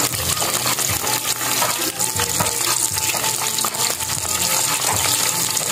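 Flour-coated chicken intestines (isaw) deep-frying in hot oil in a wok: a steady, dense sizzle with many small crackles as the oil bubbles around them.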